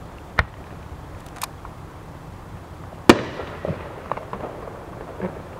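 Aerial firework shells bursting: a sharp bang, a fainter one about a second later, then the loudest bang about three seconds in with a lingering tail, followed by a scatter of smaller pops.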